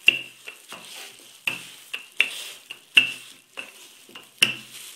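Wooden rolling pin rolling out flour-dusted dough on a plastic cutting board, with a sharp clack about every three-quarters of a second as it goes back and forth.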